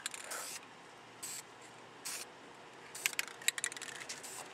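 Aerosol spray paint can hissing in three short bursts, then a quick run of sharp clicks and rattles near the end.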